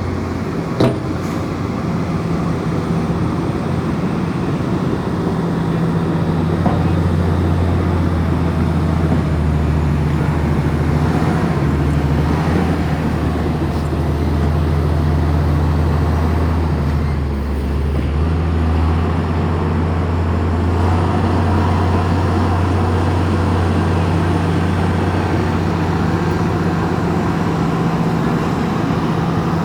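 Komatsu bulldozer's diesel engine running steadily under work, with a brief dip in level a little past the middle. A single sharp click sounds about a second in.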